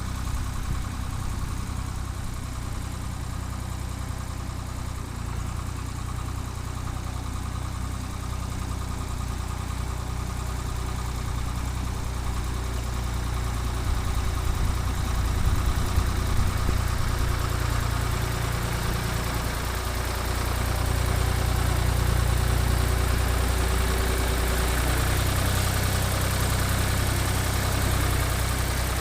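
Ford 3000 tractor's three-cylinder engine running steadily, getting louder about halfway through with its speed shifting a couple of times as it works. It runs smoothly again after a cylinder head replacement.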